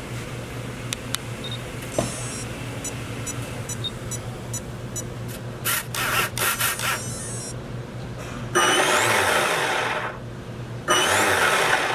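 Short electronic beep patterns as the EMILY's speed controller powers up, then its electric jet-drive motor spinning the impeller in two runs of about two seconds and one second, each starting with a rising whine, to check that it spins the right way after two motor wires were swapped.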